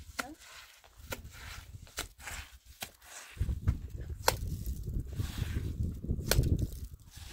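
Mortar work on a cinder-block wall: sharp knocks and scrapes as wet mortar is scooped from a metal wheelbarrow and pressed onto the blocks. A low rumbling noise comes in about halfway.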